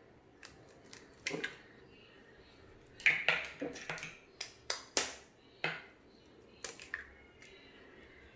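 Two eggs cracked one after the other into a small ceramic bowl: a series of sharp taps and shell cracks, with short clicks as the shells are pulled apart.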